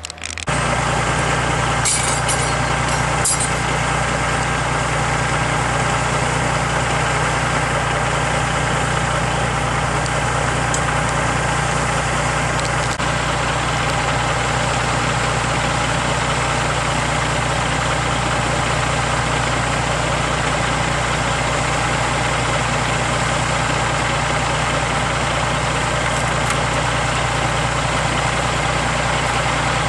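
Log truck engine idling steadily at an unchanging speed. It comes in abruptly just after the start, with a few faint ticks about two and three seconds in.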